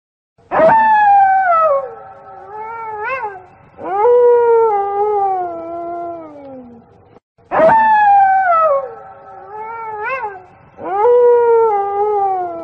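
Wolf howling, a recorded sound effect. A falling howl, a few short wavering notes, then a longer howl sliding slowly down; the same sequence plays again about seven and a half seconds in.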